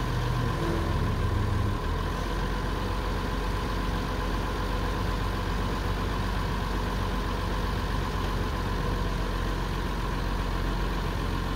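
Hyster forklift engine running steadily at idle. It runs a little harder for the first two seconds, then settles.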